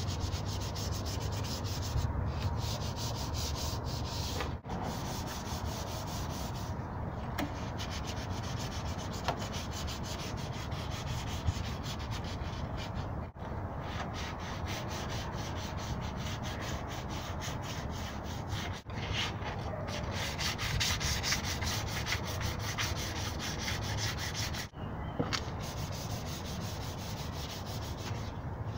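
Hand-sanding the grey rocker panel of a 2nd-gen Dodge Ram 1500 with a sanding pad: steady back-and-forth rubbing strokes that stop briefly four times.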